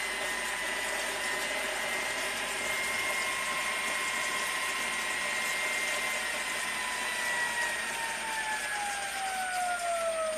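Gen 3 Toyota Prius transaxle spinning on the bench, driven through its MG2 electric motor by an inverter: a steady whine over a rushing mechanical noise. The whine starts falling in pitch about seven seconds in as the transaxle slows down.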